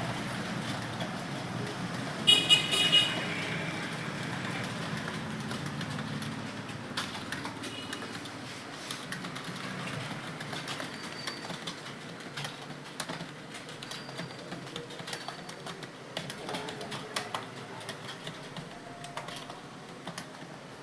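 Computer keyboard keys clicking in quick, uneven runs as someone touch-types a timed test, over a low background rumble. About two seconds in, a short, loud horn toot cuts through.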